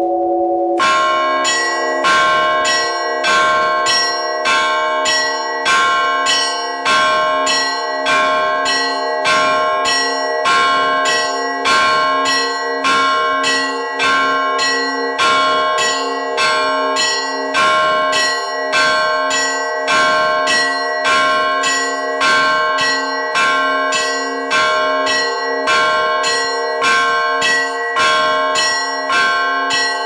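Orthodox church bells rung by hand: a ringer pulls ropes tied to the clappers of several small belfry bells, striking them in a quick, steady, repeating pattern of about two to three strokes a second, the tones ringing on into each other. The pattern starts about a second in over a bell still ringing out.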